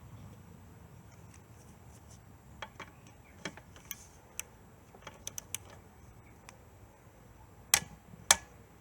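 Ratchet torque wrench on the scooter's 14 mm oil drain plug: scattered light clicks, then two sharper clicks near the end as the plug is tightened toward 25 Nm.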